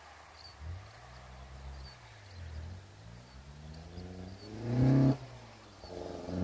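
1971 Toyota Celica TA22's 1.6-litre 2T-B four-cylinder, running twin Solex carburettors and the stock exhaust, accelerating hard through the gears toward the listener. The engine note climbs, falls back about two and a half seconds in, climbs again to a loud peak that drops away sharply about five seconds in, then rises loudly again near the end.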